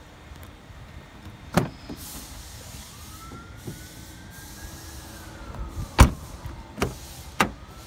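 Jaguar XF saloon's doors being worked: a latch click about a second and a half in, then a solid door shutting about six seconds in, followed by two sharper latch clunks.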